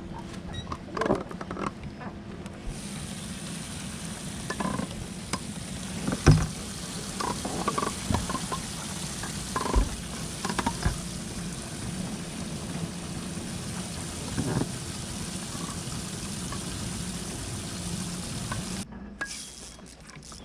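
A steady hiss, like spraying or rushing water, starts a few seconds in and cuts off suddenly near the end, with scattered sharp knocks over it.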